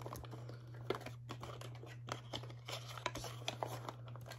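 Small cardboard box being opened by hand: irregular rustling and scraping of the carton and its flaps, with scattered small clicks.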